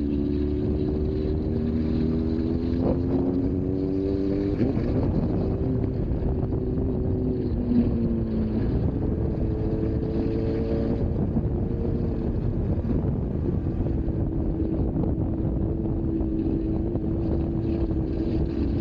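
Motorcycle engine under way with wind noise on the microphone: the engine pitch climbs slowly as it pulls, drops sharply at a gear change about four and a half seconds in and again about eight and a half seconds in, climbs once more, then holds steady at cruising speed.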